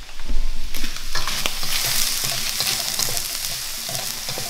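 Shrimp and chopped shallots sizzling in oil in a hot wok while being tossed with a wooden spatula and metal tongs, with clicks of the utensils against the pan. The sizzle jumps up sharply just after the start as the food is stirred.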